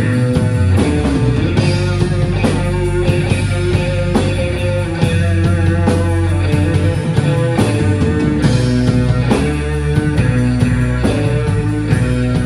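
Live blues-rock band playing: electric guitar over bass guitar and a drum kit, loud and continuous.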